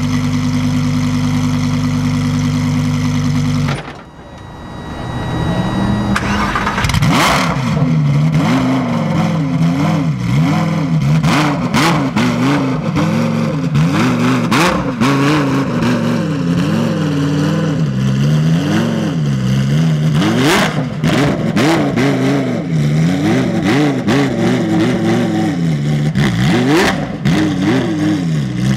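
Lamborghini Huracán Super Trofeo's V10 idling steadily, then cutting out about four seconds in as it stalls. It is restarted and revved up and down over and over, the pitch rising and falling about once a second, as the car is eased up trailer loading ramps, with scattered sharp cracks.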